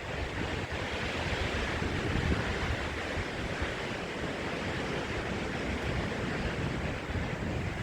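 Strong storm wind blowing, a steady rushing noise with low buffeting of gusts on the microphone.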